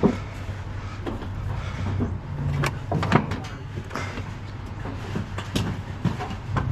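Pieces of scrap metal clanking and knocking as they are handled, about eight irregular hits, over a steady low engine hum.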